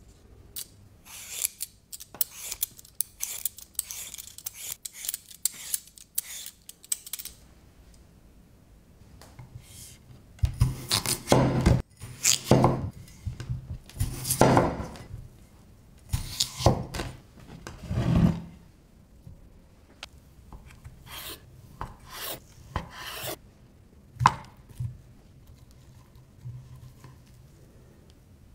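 Raw potato being peeled with a vegetable peeler, a quick run of scraping strokes. About ten seconds in, a cleaver cuts the peeled potato on a wooden cutting board in a series of louder chops. Near the end come a few lighter knocks and one sharp click.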